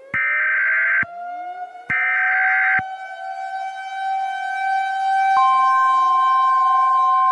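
Emergency Alert System data tones: two harsh, warbling bursts of about a second each, a second apart, which are the digital header that opens an alert. Siren wails wind up in pitch and hold under them, and a steady alert tone joins about five seconds in.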